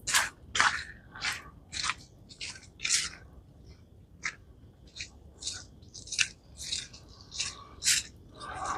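Footsteps walking at about two steps a second, each step a short crunch, with a brief rustle near the end.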